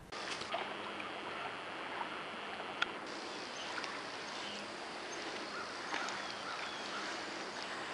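Water sloshing and splashing as a dog swims, over steady outdoor ambience, with a sharp click a little under three seconds in.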